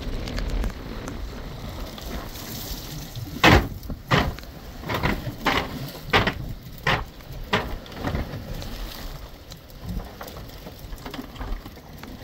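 A cast net full of ballyhoo hauled aboard and dumped on the boat's deck. Water splashes and patters down in a run of about eight wet hits, roughly one every half second, starting about three and a half seconds in; the first hit is the loudest.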